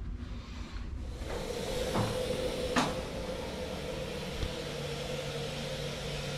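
A steady machine hiss with a low hum comes in about a second in and runs on, a lower hum joining about halfway through. There are two light clicks early on.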